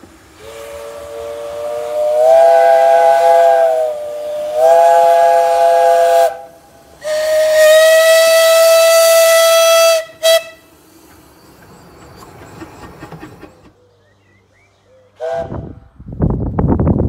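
Steam whistles of a 15-inch-gauge double-headed steam train: two long chime blasts sounding several notes at once, then one long single-note whistle and a short pip, over steam hiss. A brief chime toot comes later, then wind noise on the microphone near the end.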